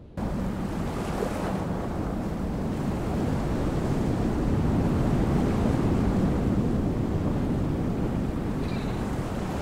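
Steady rush of wind and waves on a shore, cutting in suddenly at the start.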